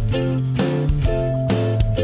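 Background music with strummed guitar chords in a steady rhythm, about two strums a second.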